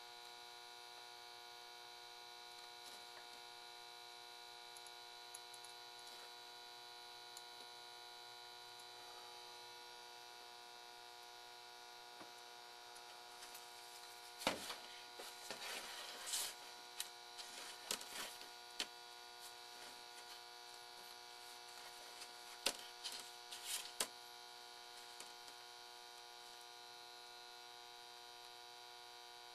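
Faint steady electrical mains hum with several fixed tones. About halfway through comes a cluster of light clicks and taps from a small circuit board and soldering tools being handled and repositioned on the bench.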